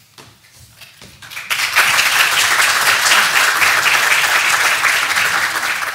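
Audience applauding, the clapping starting about a second and a half in and then holding steady.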